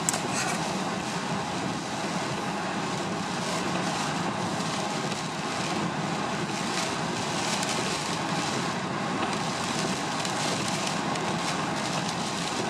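Steady rushing of strong wind and Lake Superior surf, heard from inside a pickup truck with its engine running low underneath.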